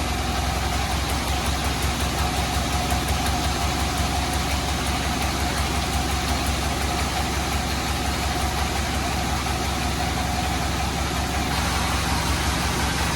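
Sawmill bandsaw running with a steady mechanical drone and a strong low hum; the sound shifts slightly about eleven seconds in.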